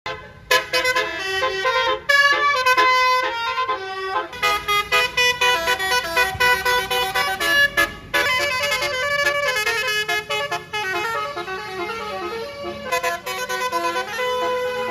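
Basuri telolet multi-tone air horn on a bus playing a fast melody, the notes changing several times a second in phrases broken by brief gaps.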